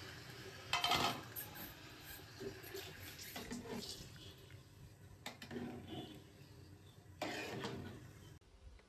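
Metal spatula clanking and scraping against a metal cooking pot while rice is stirred into the biryani liquid. The louder clanks come about a second in and again near the end.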